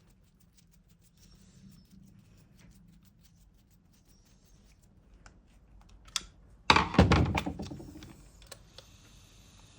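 Light clicks and knocks from hard plastic parts being handled, then a loud clatter about seven seconds in that dies away over a second or two.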